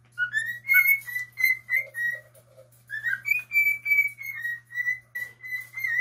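Male cockatiel whistling its song: a string of short notes held near one pitch, several sliding upward, with a brief pause about halfway through before a longer run.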